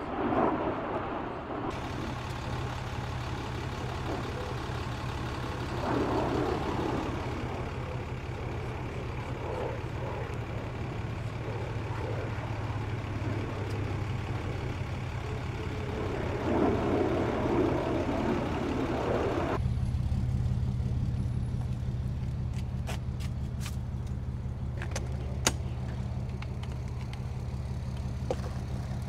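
Fighter jets, taken for F-22s, flying overhead: a steady jet rumble that swells three times as they pass. About two-thirds through it gives way abruptly to a steady low engine hum, with a few sharp clicks from an RV storage compartment door being handled.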